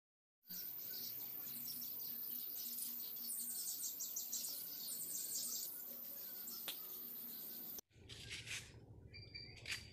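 Small birds chirping, with repeated short high chirps that slide downward, over a faint insect hum; it starts about half a second in and cuts off abruptly near the end, giving way to quieter outdoor ambience with a few faint taps.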